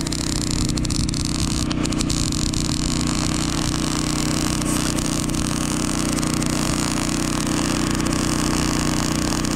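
Electric arc welding on a steel pipe fence joint: a steady crackling hiss from the arc over a constant low engine drone.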